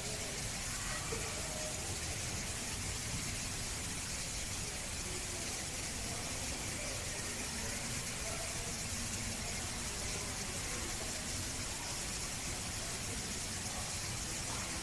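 Steady background hiss with faint, indistinct voices now and then.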